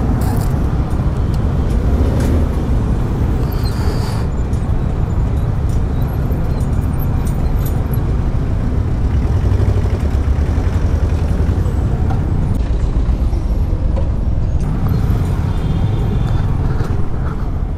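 Yamaha sport motorcycle riding slowly through city traffic: a steady low engine and road noise, mixed with the sound of the traffic around it.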